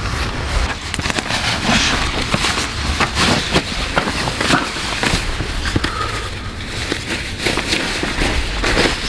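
Close, crackly rustling and scraping of a dark jacket being pulled off and handled, with a knife shaving wood into curls at the start.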